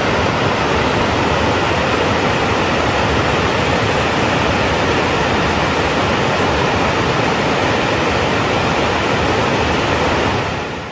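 Large multi-tiered waterfall: the steady, loud rush of falling water, fading out at the very end.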